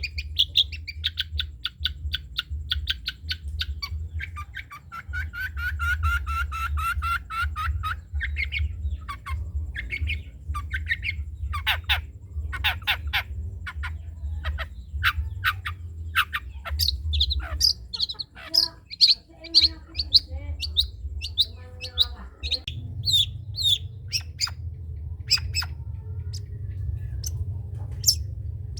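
Long-tailed shrike (cendet) singing a varied song: fast runs of rapidly repeated notes, first high and then lower, followed by many sharp separate notes. A steady low hum lies underneath.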